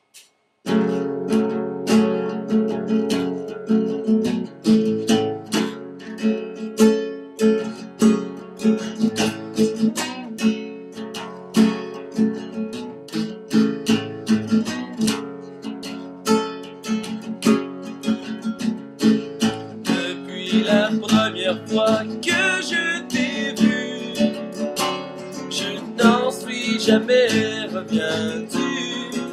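Acoustic guitar with a capo strummed steadily in a chord pattern, starting about half a second in. A man's singing voice joins in over the guitar near the end.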